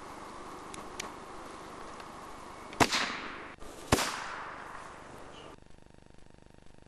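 Two gunshots about a second apart, each a sharp report followed by a fading echo lasting about a second.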